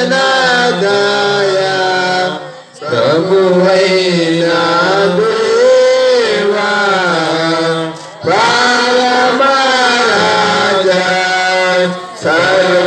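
A congregation chanting a sung church liturgy in Telugu, in long held phrases with brief pauses for breath between them.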